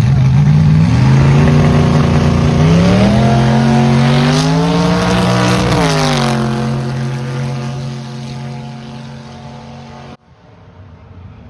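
A compact pickup truck's engine at full throttle on a drag-strip pass, climbing in pitch with a shift about two and a half seconds in. Its pitch drops sharply as it passes close by about six seconds in, then it fades away down the track. The sound cuts off abruptly about ten seconds in.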